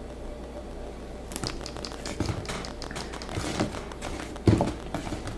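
Cardboard product packaging being handled: a run of small clicks and rustles, with a single louder thump about four and a half seconds in.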